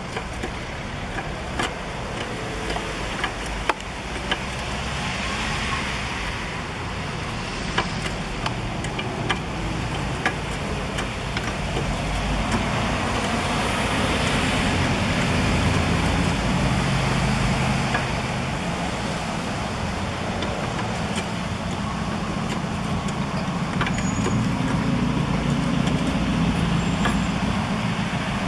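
A low motor-vehicle rumble, louder in the second half, with scattered sharp clicks and knocks of hand tools on metal in the first half.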